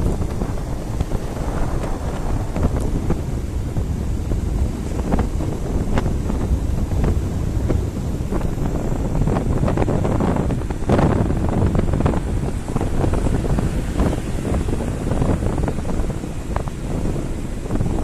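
Heavy wind buffeting on the microphone of a two-wheeler cruising along a highway, over the rumble of the ride. A stronger gust comes about eleven seconds in.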